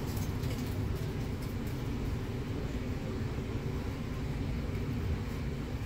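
City bus engine running with a steady low rumble, heard from inside the passenger cabin.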